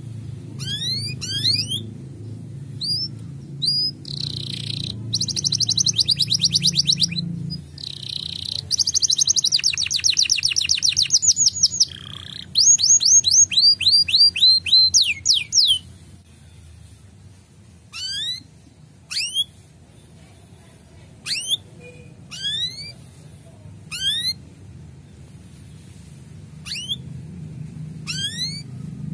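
Male domestic canary singing. Rapid trills of rising chirps come in three runs through the first half. After that come single rising 'cuit' chirps a second or two apart. A low rumble sits in the background during the first several seconds.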